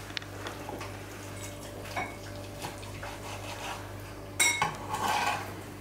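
Kitchen knife slicing a stuffed roast chicken on a plastic cutting board, with small taps and scrapes over a steady low hum. About four and a half seconds in, a sharp metallic clink and a second of dishes and cutlery clattering are the loudest sounds.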